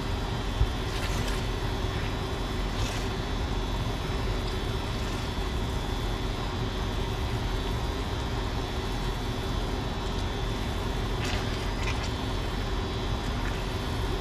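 Melted butter simmering and sizzling steadily in a stainless steel skillet, with a faint steady high tone underneath. A silicone spatula scrapes lightly across the pan a few times: about a second in, just before three seconds, and twice near the end.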